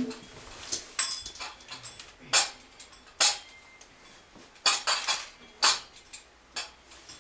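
Short jingling shakes of a handheld rattle, about eight in all at irregular spacing, some in quick pairs.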